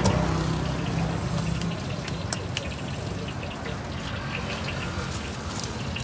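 Busy street-stall ambience: an engine running steadily with a low hum, and scattered light clicks and clinks of utensils and pans.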